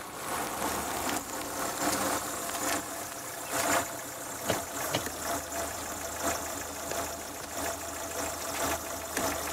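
Renault 18 car engine running unevenly with a knocking, the car acting up with a fault that the driver cannot explain; a few sharp clicks partway through.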